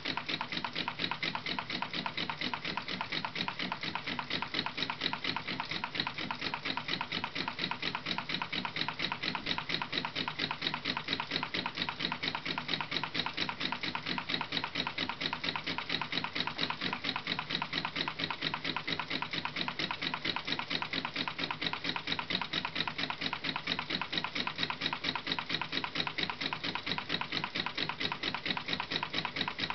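Homemade pop-can Stirling engine running steadily and turning its fan, with a rapid, even ticking several times a second that does not change in pace.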